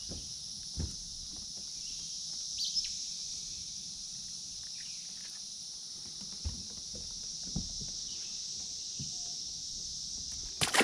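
A steady high-pitched insect drone, with a few soft knocks on the boat, a short bird chirp about two and a half seconds in, and a sharp click near the end.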